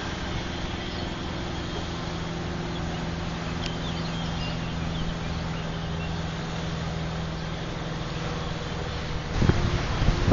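A boat's engine running with a steady hum, over a hiss of water and wind. About nine seconds in it gives way to louder wind buffeting the microphone.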